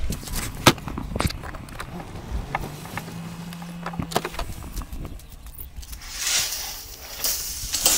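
Knocks and clunks of a vehicle door being handled, over the low hum of the vehicle, followed near the end by two bursts of rushing noise.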